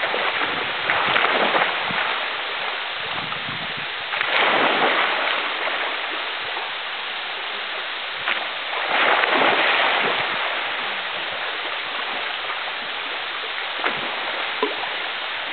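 Steady rushing of a waterfall sliding down a rock slab into a shallow pool, swelling louder about a second in, around four seconds in and around nine seconds in.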